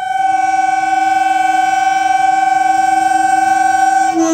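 Horn of an approaching electric local train sounding one long, loud, steady blast. Its pitch steps down slightly near the end.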